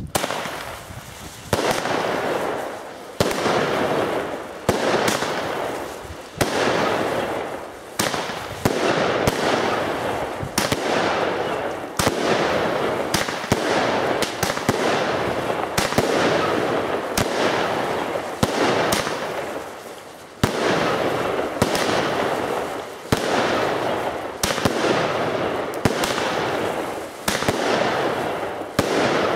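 Weco Big Crackles firework battery firing shot after shot: a sharp launch bang roughly every one to one and a half seconds, each followed by a dense crackling that fades away before the next shot.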